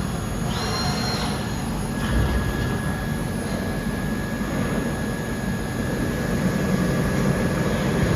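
Micron VCP 710 CNC vertical machining centre running with a steady mechanical noise. A short high whine comes about half a second in, and a thin steady whine starts about two seconds in.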